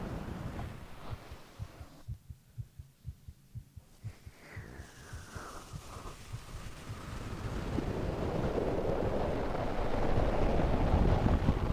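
Heartbeat heard close up, as through a sleeping person's chest: a run of soft low thumps, clearest in the first half. In the second half a rushing sound, his breathing, swells up over the beat.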